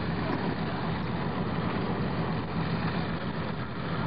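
Fishing boat's engine running steadily, an even low drone.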